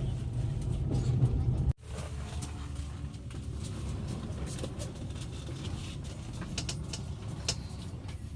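Low steady vehicle rumble, cut off abruptly about two seconds in and replaced by a quieter steady rumble with a few light clicks near the end.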